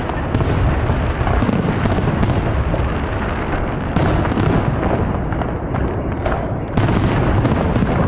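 Aerial fireworks shells bursting in quick succession, a dense run of bangs and crackles over a continuous low rumble. Sharper, louder bursts come about four seconds in and again near the end.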